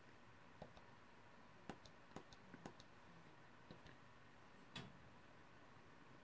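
Faint, sharp clicks of the Opel Insignia's steering-wheel menu buttons being pressed to scroll the instrument-cluster display, about eight in all at uneven spacing, the loudest about three-quarters through, over a low hiss.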